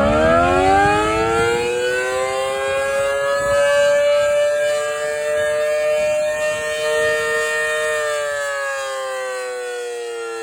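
Federal Signal Model 5BT electromechanical siren sounding a short alert. It is still winding up at the start, holds a steady two-tone chord for several seconds, then begins winding down with falling pitch from about eight seconds in.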